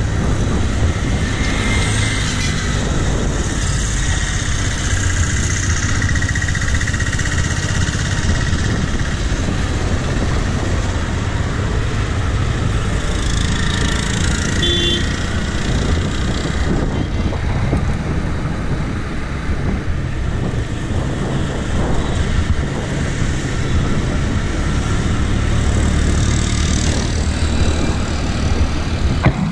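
Road traffic heard from a moving bicycle: a steady low rumble with several motor vehicles going by, the clearest passes a few seconds in, around halfway and near the end.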